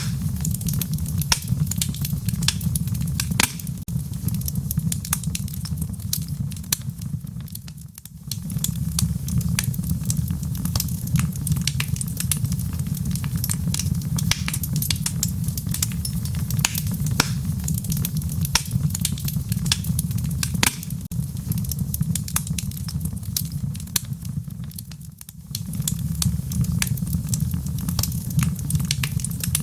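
Fire burning in a fireplace, with frequent sharp crackles and pops over a steady low rumble of the flames. The rumble briefly fades and returns twice.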